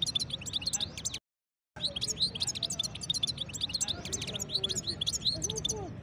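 European goldfinch singing in a small cage: a fast run of high chirps and twittering trills. The sound cuts out completely for about half a second just after one second in.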